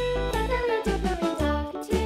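Background children's music: a pitched melody over a bass line whose notes change about every half second.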